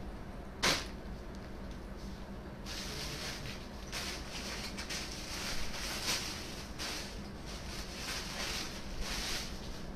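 Cloth rustling and handling in irregular bursts as blouses are folded and swapped, with one short sharp click about half a second in.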